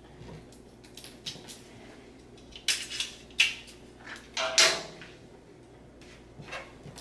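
A handful of short scratchy rasps and clicks of double-sided tape being pulled, torn off and pressed onto a wall, bunched together in the middle.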